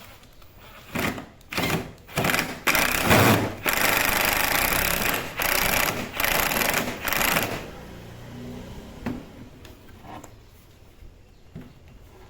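A power tool run in repeated short bursts, each a fraction of a second to about a second and a half long, from about one second in to about seven and a half seconds in, with quieter pauses after.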